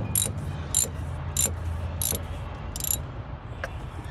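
Socket ratchet wrench being worked back and forth to tighten a spark plug: a short burst of ratchet clicks on each return stroke, about one and a half strokes a second, five in a row and then a brief pause near the end.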